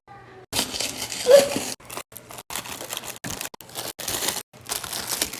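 Snack packaging being handled and unpacked: irregular crinkling and rustling, broken several times by sudden short silences.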